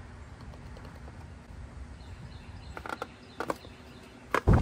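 Light clicks and knocks of a plastic engine cover being pressed and seated onto a V8, several close together about three seconds in and one louder knock near the end, over a low steady wind rumble on the microphone.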